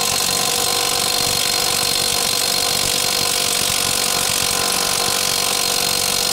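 Cordless impact wrench hammering steadily on a brake caliper carrier bolt without breaking it loose. The bolt is very tight, held with threadlock.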